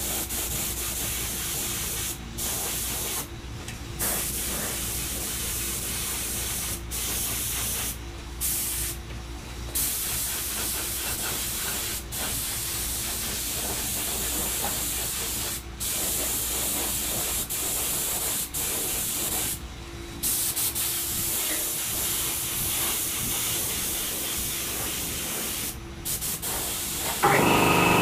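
Gravity-feed spray gun hissing with compressed air as it sprays epoxy primer, in long passes broken by about nine brief cuts where the trigger is let go. Near the end a louder, steady hum with several tones comes in.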